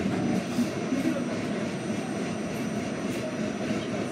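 Steady low rumble inside an R68 subway car as the train runs along the track.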